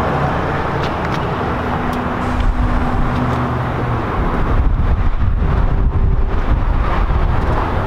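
A motor vehicle engine running steadily, a low rumble with some wind on the microphone. It grows a little louder about halfway through.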